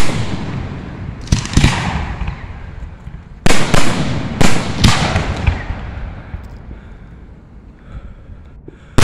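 Aerial firework shells bursting overhead: a loud bang about a second and a half in, then a quick volley of four bangs from about three and a half to five seconds in. Each trails off in a rumble that fades to a lull near the end.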